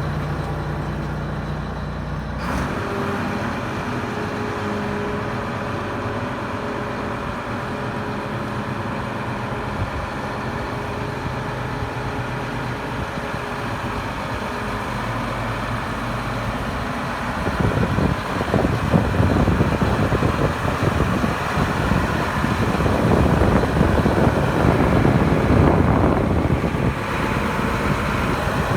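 A New Holland CR9090 combine harvester's FPT Cursor 13 diesel engine running steadily. It grows louder and rougher a little past halfway.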